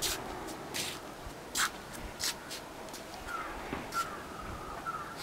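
A young puppy giving faint, thin, wavering whimpers in the last two seconds, over scattered sharp clicks and rustles.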